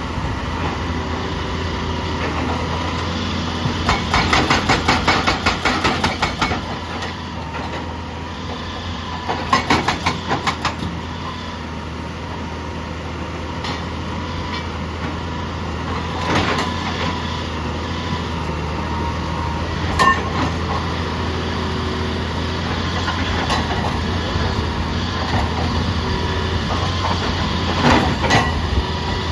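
Heavy diesel machinery running steadily, with two bursts of rapid, rhythmic clattering about four and nine seconds in, a few scattered knocks, and more clatter near the end.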